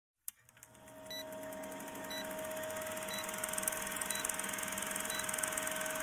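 Short high electronic beeps about once a second over a steady hum and hiss, fading in over the first second.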